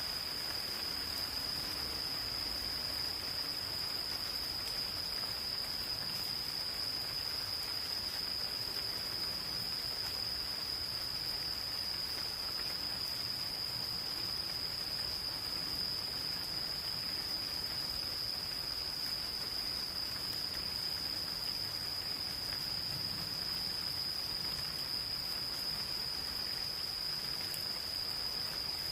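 Insects calling in one steady, unbroken high-pitched trill, over the even hiss of gentle rain.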